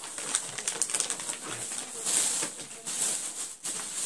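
Crinkling and rustling of a plastic snack packet of makhana (fox nuts) being handled, with dense irregular crackles.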